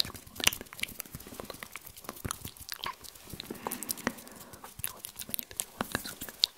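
Close-miked ASMR mouth sounds: rapid, irregular wet clicks and smacks, mixed with hand movements close to the microphone.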